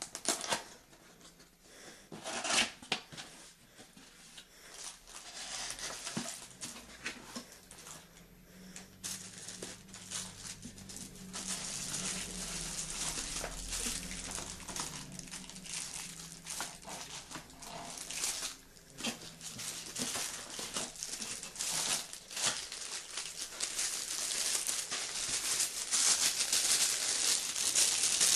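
Packaging being handled and unwrapped: crinkling and tearing wrap with scattered knocks and clicks, busier and louder in the second half.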